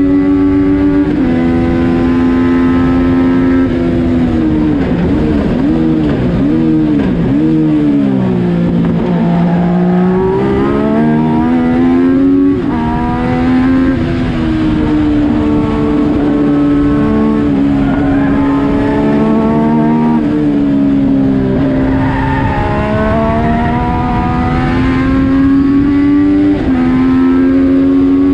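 Yamaha FZ-09 three-cylinder motorcycle engine in a race car, heard from the cockpit, running hard at high revs. The note rises through the gears and drops at each upshift, and dips several times in quick succession as it shifts down about four to nine seconds in, then climbs again under acceleration.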